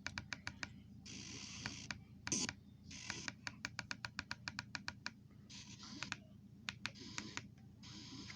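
A run of sharp clicks, at times coming about five a second, broken by bursts of hiss lasting up to about a second.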